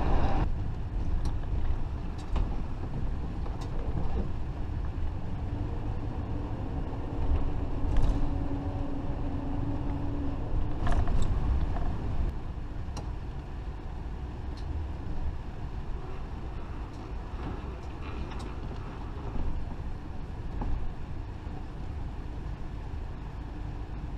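Fleetwood Flair Class A motorhome driving, with a steady low engine and road rumble. A steady hum rises for a few seconds in the middle, and light clicks and rattles come now and then.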